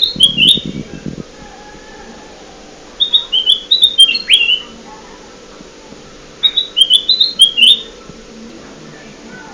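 Kutilang emas (a bulbul) song used as a bird-lure call: a short phrase of quick chirping notes, repeated three times about three seconds apart.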